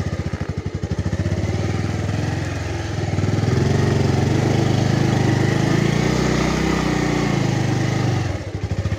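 Motorcycle engine running as the bike is ridden slowly over a muddy dirt track. The revs rise about three seconds in and are held, then drop back near the end.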